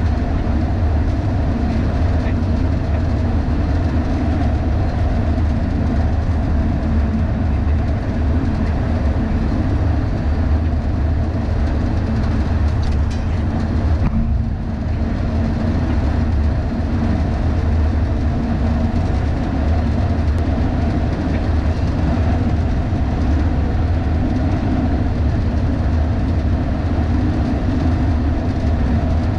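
Steady low rumble of a moving truck's road and wind noise, picked up by a camera mounted high on the truck's roof. Level dips briefly about halfway through.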